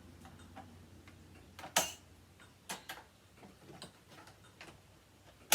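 Vintage Hoover upright's height adjuster being clicked through its settings: a handful of sharp, irregular clicks, loudest about two seconds in and at the very end.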